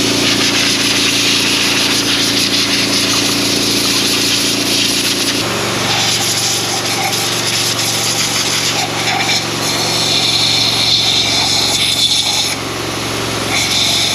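John Deere cotton picker running steadily under load while picking, with a steady engine drone and a loud hiss of air and machinery.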